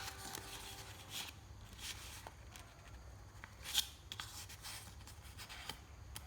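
A sheet of paper being handled and folded, rustling and rubbing with a few short crinkles as creases are pressed in, the sharpest nearly four seconds in.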